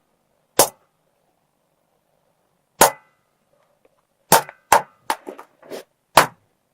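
A series of sharp, loud clangs as a fidget spinner is smashed against a hard floor: single hits about a second and two seconds apart, then blows coming faster with smaller knocks in between in the second half.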